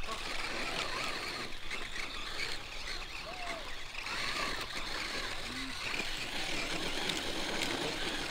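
A radio-controlled off-road buggy's motor whines continuously, its pitch wavering as it climbs a steep slope of loose gravel and dirt.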